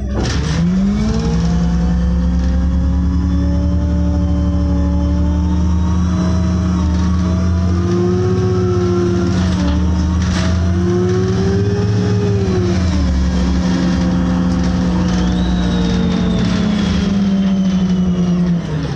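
City bus engine and drivetrain heard from inside the passenger cabin. It pulls away with a rising pitch, then runs at a steady drone, with higher whining tones that rise and fall. It eases off near the end.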